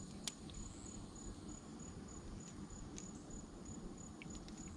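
An insect chirping steadily outdoors, a high pulsed note repeating about four times a second. About a third of a second in there is one sharp click, with a few lighter clicks later, from the steel blades of a feeler gauge set being handled.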